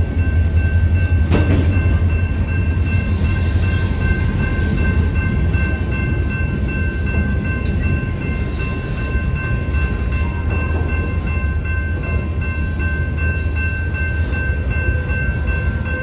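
Freight train of loaded centerbeam lumber flatcars rolling through a grade crossing: a steady low rumble from the cars, with one sharp clank about a second and a half in and brief higher squeals a few times. The crossing's warning bell rings steadily over it.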